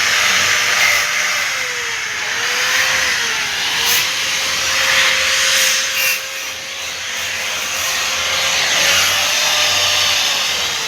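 Handheld electric power tool grinding or sanding against a surface. Its motor tone sags and recovers several times as the tool is pressed on and eased off.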